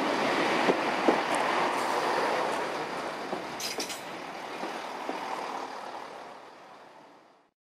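Chiltern Railways diesel multiple unit running past and drawing away, wheels knocking a few times over the rail joints, with a brief high wheel squeal about three and a half seconds in. The noise fades steadily as the train leaves, then cuts off suddenly near the end.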